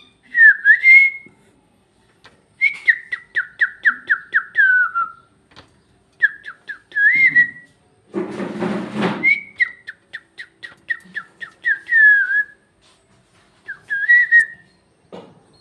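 Pet parrot whistling: a string of clear whistled phrases, several of them quick runs of about four or five notes a second that slide down in pitch. About halfway through comes a harsh, raspy burst lasting about a second.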